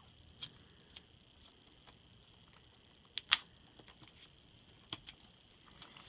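A few light clicks and ticks from handling a new laptop screen panel while its protective film is removed, the sharpest pair about three seconds in, over a faint steady high whine.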